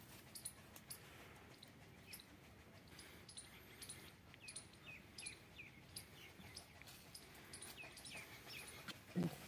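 Faint small birds chirping, with many short falling chirps scattered throughout. Near the end, one brief low call from an animal.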